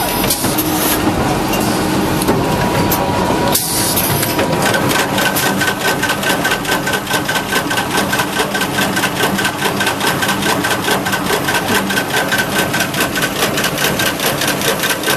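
Industrial machinery running with a steady mechanical hum, then from about five seconds in a fast, even clatter of about five strokes a second with a pulsing whine.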